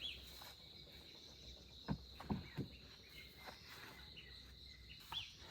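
Steady high-pitched insect drone with a few short bird chirps, and three or four dull thuds about two seconds in.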